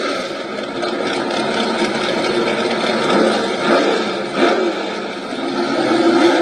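Drag race cars' engines at the starting line, running at a rough idle with short revs that rise and fall several times.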